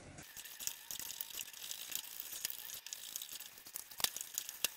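A wooden spoon stirring and scraping a thickening cornstarch and baking-soda paste in a stainless steel saucepan, a steady scratchy crackle with small clicks and a couple of sharper knocks near the end. The mixture is being heated into a clay-like dough.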